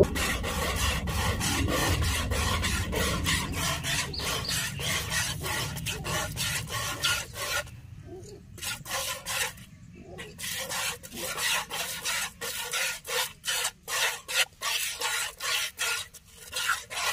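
Cow being milked by hand: rhythmic hissing jets of milk squirting into a plastic bucket, about three strokes a second, with brief pauses about eight and ten seconds in.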